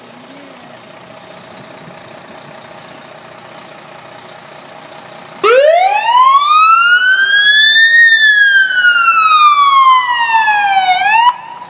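Fire truck siren wailing once: it comes on suddenly about halfway through, rises in pitch for a couple of seconds, falls slowly, and cuts off shortly before the end. Before it there is only a steady background hum.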